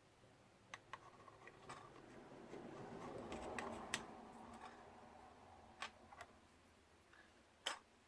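Small clicks and taps of small plastic and electronic drone-camera parts being handled, with a soft rustle of handling that swells and fades around the middle; the sharpest click comes near the end.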